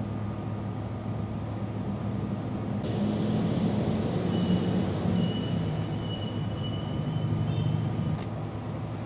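External DVD drive whirring with a steady high whine as it reads the CentOS install disc during boot. It starts abruptly about three seconds in and stops with a click about eight seconds in, over the steady low hum of the running computer.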